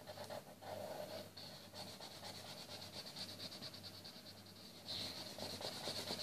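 Felt-tip marker rubbing across paper in quick strokes, colouring in, a little louder from about five seconds in.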